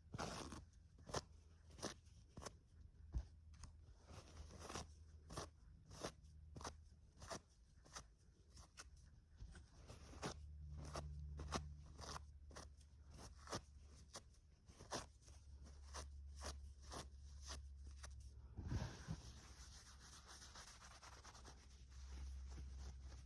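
Faint, quick, irregular taps and clicks on objects close to a microphone, several a second, as in fast ASMR tapping. From about two-thirds of the way in they give way to a steady scratchy rubbing.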